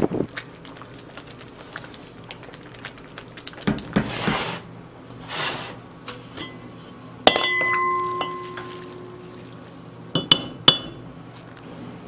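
Cookware clattering on a stovetop: light knocks of a wooden spoon stirring in a cast-iron pot, two short hissing rushes around four and five seconds in, then a metal pot lid set down with a clank that rings on for over a second. Two more sharp metallic clinks come near the end.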